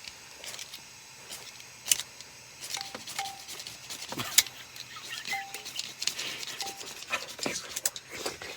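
Sharp clicks and metallic rattling from camp stove and cooking gear being handled, with the loudest knocks about two and four and a half seconds in, and a few short squeaks.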